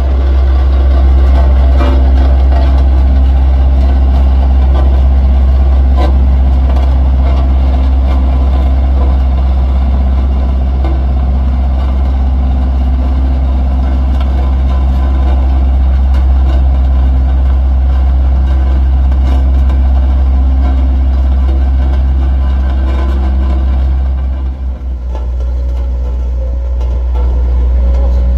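A large truck's engine running steadily and loudly close by, with a deep low hum. The sound dips briefly near the end.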